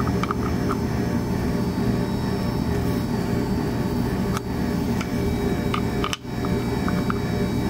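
A few light metallic clicks and taps as an aluminium wrench is fitted onto and turns a threaded fitting on an intake manifold, over a steady low background hum.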